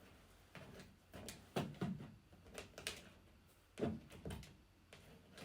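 Parts of a robot vacuum being fitted together by hand: a series of light knocks and clicks, in a few clusters.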